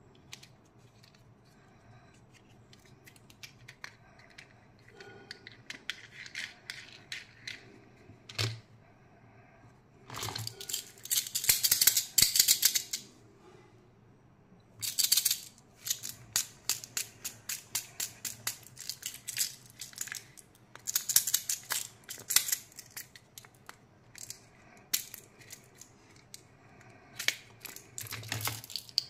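Hands handling plastic candy toys and their packaging: crinkling, crackling and clicking of plastic in repeated bursts, with loud dense stretches about a third of the way in and through the middle, and rattling of small candies in a plastic case near the end.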